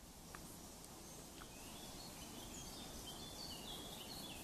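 Faint birdsong: a run of short, high chirps and quick falling whistles, mostly in the second half, over a quiet outdoor hiss.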